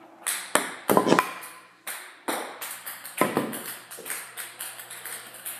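A ping-pong ball hitting a paddle and bouncing on a table, a run of sharp clicks. There are a few loud hits in the first couple of seconds, then a quicker, lighter patter of about four or five bounces a second.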